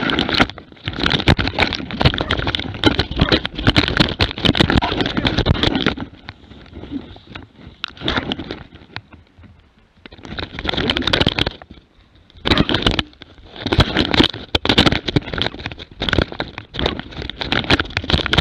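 Camera strapped to a dog moving through forest undergrowth: dense knocking, crackling and scraping as the mount rubs on fur and brushes through twigs and brush, broken by a few short lulls.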